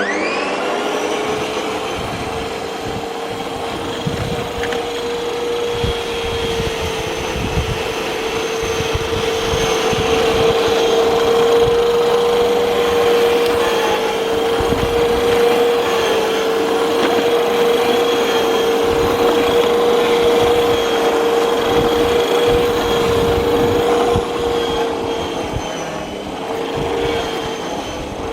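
Makita MLM-2851 electric reel lawn mower starting up and running with a steady high whine that rises briefly as it starts, an abnormal noise which the owner puts down to the reel blade shaft bearing.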